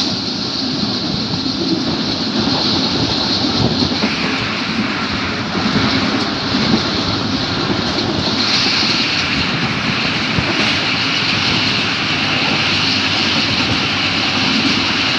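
Passenger train running at speed, heard from inside a coach: a steady, unbroken noise of the wheels on the rails.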